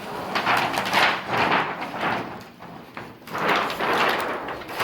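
A large thin sheet inside the TV, the backlight's reflector or diffuser sheet, being flipped over and slid against the panel, giving two long stretches of scraping and rustling.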